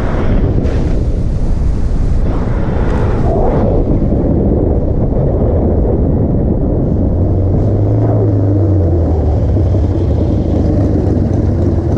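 Loud wind rumble buffeting the microphone of a camera riding along a road, with gusty rushes near the start and about three seconds in. A low steady hum rises under it about seven seconds in and fades again a couple of seconds later.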